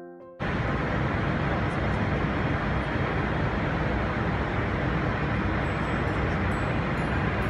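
After piano music cuts off about half a second in, a steady, even rush of aircraft cabin noise.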